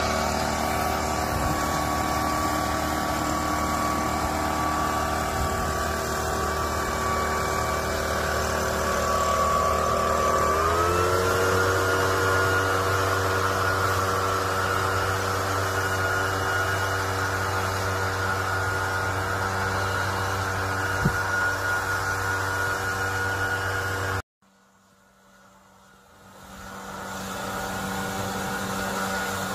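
Maruyama backpack power fertilizer spreader (engine-driven blower) running steadily with a fan whine while blowing granular fertilizer over the paddy. About ten seconds in the engine speeds up, rising in pitch, and then holds at the higher speed. Near the end the sound cuts out abruptly and fades back in a couple of seconds later.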